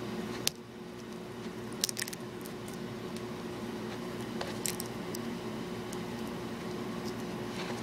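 Fingers prying at a stuck plastic DVD case: a sharp click about half a second in, a quick cluster of clicks around two seconds, and a few more a little past halfway, with faint scraping of plastic in between.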